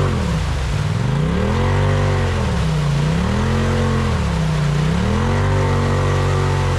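Side-by-side off-road vehicle engine revved up and down about three times, its pitch sliding smoothly low then high with each rev, over a second engine running at a steady pitch.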